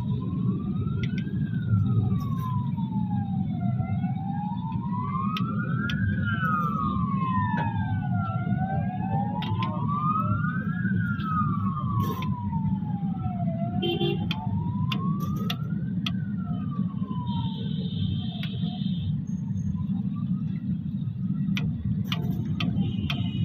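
A siren wailing, its pitch rising and falling slowly, about two seconds up and two seconds down, dying away a little after the middle. Under it runs a steady low rumbling noise, with a few sharp knocks.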